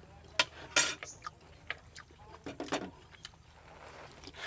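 Metal spoons clinking and scraping against ceramic plates and bowls as food is served and eaten, a few sharp separate clinks with the loudest about half a second and a second in and another short clatter near three seconds.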